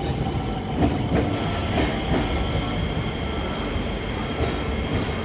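MRT train moving through the station: a steady low rumble with occasional sharp wheel clicks over the rails. A thin high steady whine sets in about a second in.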